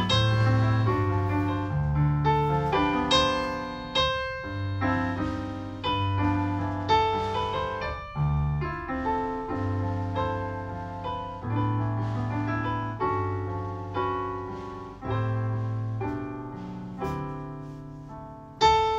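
Electric keyboard playing in piano voice: chords struck about once a second and left to ring out, over held low bass notes.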